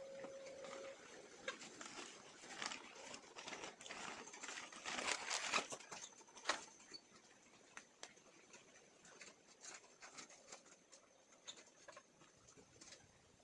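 Chickens in a coop scratching and pecking: faint, irregular light taps and rustling, busiest a few seconds in and thinning out toward the end.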